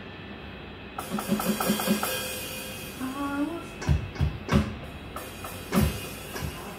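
Electronic drum kit being played: a quick fill of drum hits about a second in, then heavy bass drum and tom strokes with cymbal crashes in the second half.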